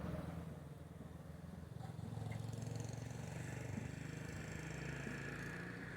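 A motor vehicle's engine running steadily, a low even hum, with a faint high whine growing louder in the second half.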